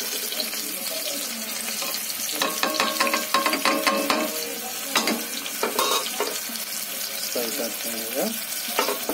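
Chopped onion sizzling in hot oil in an aluminium pressure cooker as whole spices are dropped in. There is a run of metallic clinks and knocks against the pot about two to four seconds in, with a few more later.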